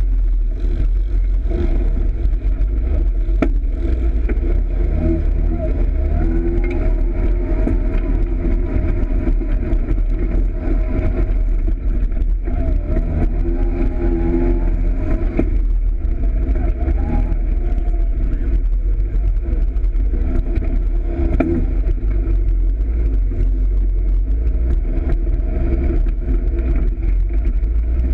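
Engine of a Polaris RZR side-by-side running hard on a dirt trail, its pitch rising and falling repeatedly as the throttle changes, over a steady low rumble.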